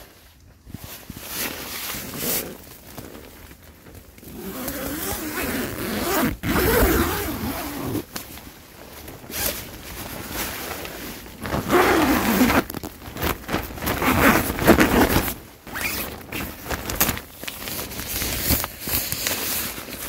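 Tent door zipper being run open in several strokes, with the tent's nylon fabric rustling between them.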